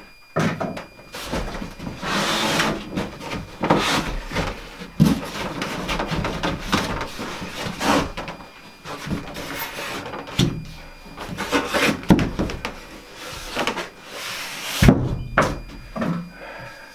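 Wooden wall boards being handled, slid and knocked into place: irregular knocks and scraping, with a sharp knock near the end.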